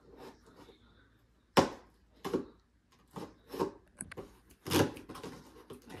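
A cardboard box being opened and handled: a series of sharp rustles and knocks, the loudest about one and a half seconds in and another near the end.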